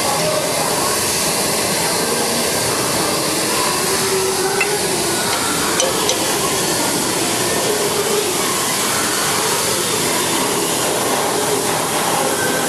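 Loud, steady machinery noise, with a couple of faint metallic clinks about five and six seconds in.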